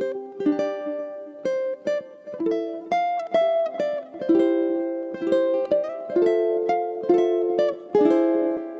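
Solo ukulele playing an instrumental melody, with plucked notes and chords struck a few times a second, each ringing briefly and fading.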